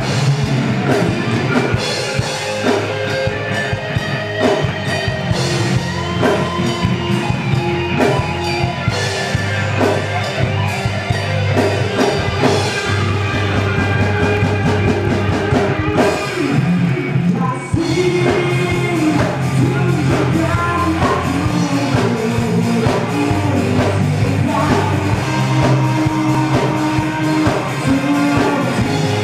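A live rock band playing a song: male lead vocals over electric guitar, bass guitar and drum kit, with a brief break about sixteen seconds in.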